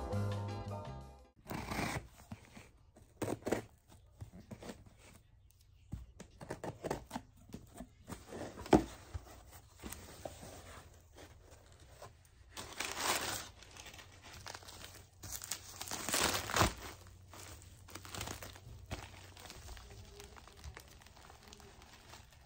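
Packaging being handled and torn open by hand: crinkling and rustling with scattered clicks, and two longer tearing stretches, one in the middle and one a few seconds later.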